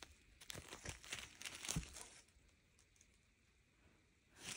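Small clear plastic zip-lock bags of diamond-painting drills crinkling as they are handled, mostly in the first two seconds, with a brief rustle near the end.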